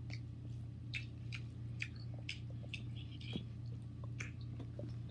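Close-up mouth sounds of someone chewing noodles: short wet clicks about twice a second over a steady low hum.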